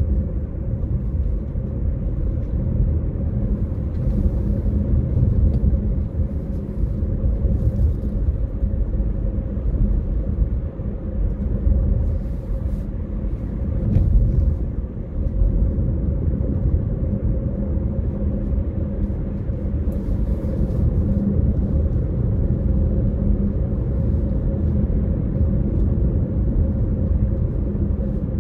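Steady low rumble of a car driving along a country road, tyre and engine noise heard from inside the cabin, with a few faint clicks here and there.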